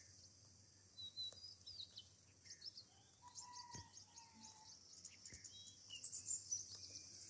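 Faint outdoor birdsong: many short, high chirps, with a longer whistled note about three seconds in, over a steady low background hum.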